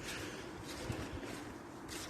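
Footsteps of a person walking: a few soft steps about half a second apart over a steady hiss.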